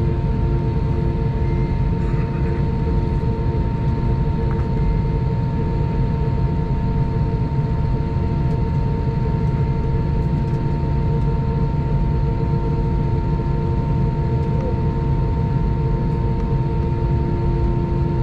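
Steady cabin noise of a jet airliner taxiing after landing, heard from inside the cabin: a low engine rumble with a constant hum.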